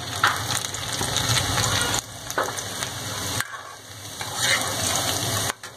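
Chopped ginger and garlic sizzling in hot oil in a kadhai, stirred with a steel ladle. The sizzle drops sharply about two seconds in and again about a second and a half later.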